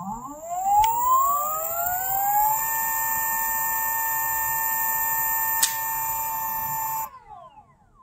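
Electric skateboard hub motor spinning its wheel in the air on the high speed setting: a whine that rises in pitch for about two and a half seconds, holds steady, then falls away and stops about seven seconds in as the motor winds down.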